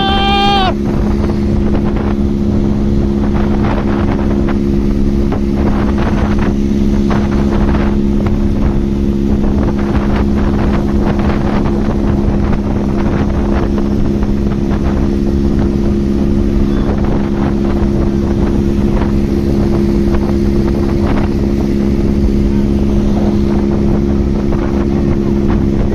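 Motorcycle engine running at a steady, unchanging speed, a constant drone, with wind rushing over the microphone.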